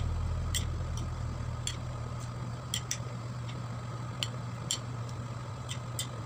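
Utensils tapping and clicking against a ceramic plate while a chopped vegetable salad is tossed: about a dozen light, irregular clicks over a faint steady background hum.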